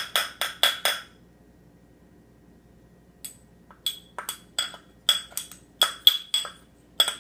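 A metal spoon clinking against a glass bowl as cornstarch is added. About five quick taps come first, then after a pause of about two seconds an irregular run of taps, each ringing briefly at the same high pitch.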